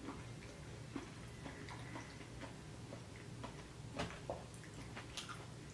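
Faint eating sounds of someone chewing vegetable chow mein: scattered small clicks and smacks, the sharpest one about four seconds in.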